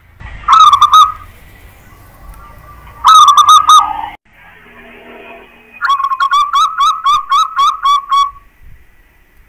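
Zebra dove (perkutut) singing: two short cooing phrases, then a longer rhythmic series of about ten quick notes, roughly four a second.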